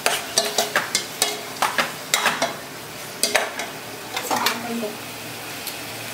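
Metal ladle stirring fish pieces in a stainless steel pot, clinking and scraping against the pot so it rings briefly, over a steady sizzle of frying oil. The clinks come thick and fast for the first two and a half seconds, then a few more around the middle.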